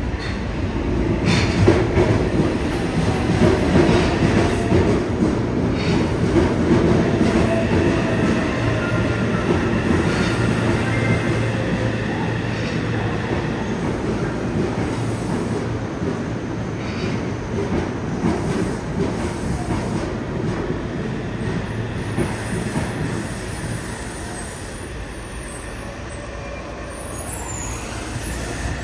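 Yokohama Municipal Subway 3000R-type train with a Mitsubishi IGBT-VVVF inverter pulling into an underground station: a steady rail rumble with a few clacks over rail joints and the traction motors whining and shifting in pitch as it brakes. The rumble fades in the last third as the train slows to a stop.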